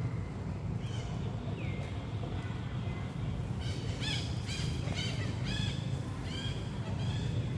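A quick series of short, high-pitched squeaky animal calls, each rising and falling, about two a second in the second half, over a steady low rumble.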